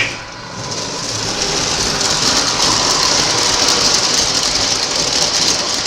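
Lionel O-gauge model subway train running on three-rail track, a steady whirring and rolling hiss of motors and wheels that builds over the first couple of seconds and then holds steady.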